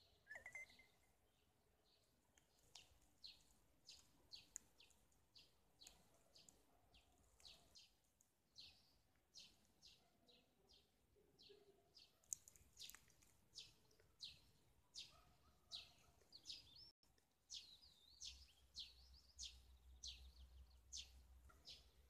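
Faint birdsong: small birds chirping over and over, short high notes at roughly two a second.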